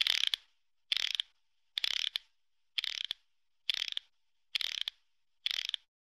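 Hand socket ratchet clicking in seven short runs, a little under a second apart, as it turns a bolt in the car door's inner frame with back-and-forth strokes.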